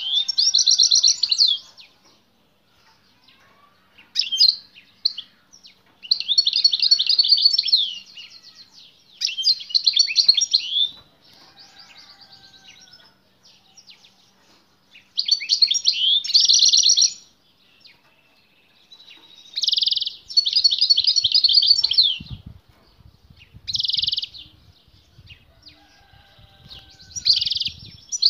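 Male European goldfinch singing in bursts of rapid, high twittering phrases, each a second or two long, with short pauses between them. This is the strong song a male gives on hearing a female singing nearby.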